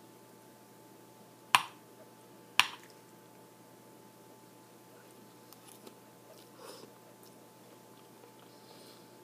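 A metal fork clicks twice against a plate, two sharp clicks about a second apart, while strands of spaghetti squash are gathered. Then faint chewing of a mouthful.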